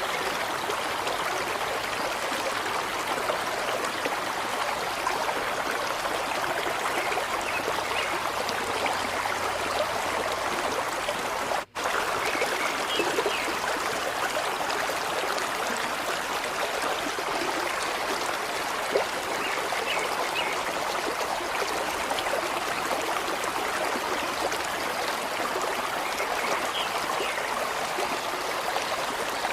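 Steady rushing water, like a flowing stream, that cuts out for an instant about twelve seconds in.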